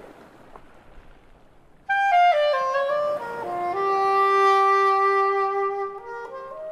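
Soprano saxophone entering about two seconds in with a quick falling run of notes that settles into a long held low note, then stepping up again near the end. Before it comes in, only a soft wash of sea waves is heard.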